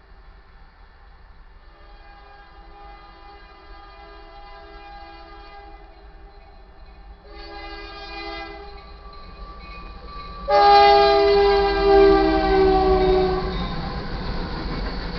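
Freight locomotive air horn sounding for a grade crossing: a long blast, a shorter one, then a much louder long blast whose chord drops in pitch as the locomotive passes. The rumble of the locomotive and rolling train builds after it.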